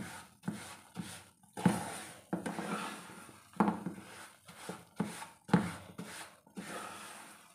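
Wooden spatula stirring and scraping a thick mixture of roasted semolina and sugar syrup around a frying pan. It comes in quick, irregular strokes, roughly one every half second to a second, each a sudden scrape against the pan that trails off.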